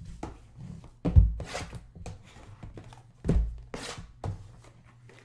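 Sealed cardboard boxes of 2016-17 Panini Excalibur basketball cards being shuffled and set down on a table: two dull thuds about two seconds apart, with lighter tapping and scraping between.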